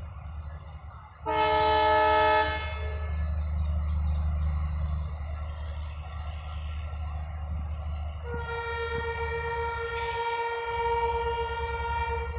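Locomotive horn giving a short, loud blast about a second in, then a second, longer horn at a different pitch from about eight seconds in. A steady low rumble of trains at the platform runs underneath.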